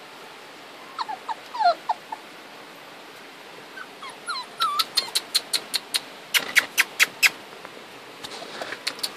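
Chocolate dachshund puppies whimpering, with short high squeaks about a second in and again around four seconds in, then a quick run of sharp short sounds for a couple of seconds.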